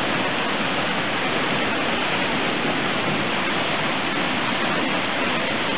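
Muddy floodwater rushing in a steady torrent across a garden and path, an even rushing noise.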